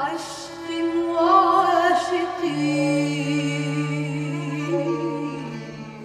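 Live acoustic ensemble music of slow, long-held notes over a steady low held note, with a voice singing long notes.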